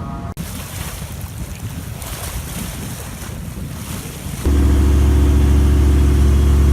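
Sea waves washing, with wind buffeting the microphone. About four and a half seconds in, this cuts abruptly to a much louder engine running at a steady low hum.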